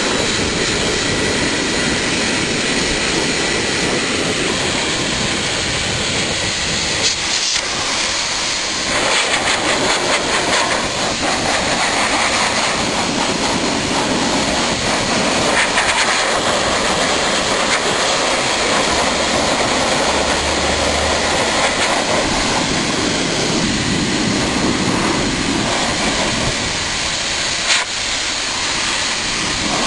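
High-velocity pet blaster dryer running steadily with a loud rush of air, its tone shifting every few seconds as the air stream is moved over a Newfoundland dog's coat.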